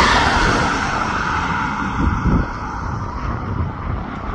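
Boeing 737 MAX 8's CFM LEAP-1B jet engines, a steady whine and rush that is loudest at the start and slowly fades as the airliner moves away, with wind buffeting the microphone.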